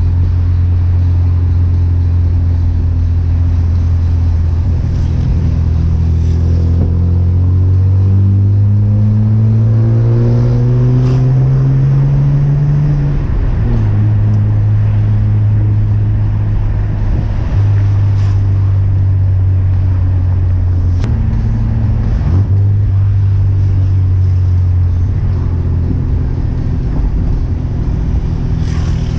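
1994 Chevrolet Omega's naturally aspirated 3.0 12-valve inline-six (C30NE) running through a 2.5-inch exhaust with two sport mufflers while driving. The engine is steady at first, then revs climb for several seconds under acceleration before dropping sharply at a gear change. It settles into steady cruising, with another drop in revs later on.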